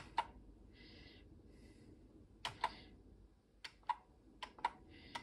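Commodore VIC-20 keys clicking as the F1 key is pressed and released to take a new capacitance reading: one click near the start, then about four pairs of sharp clicks, a press and a release each, from about two and a half seconds in.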